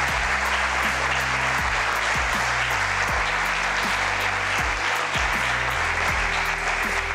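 Audience applauding over background music with a steady beat.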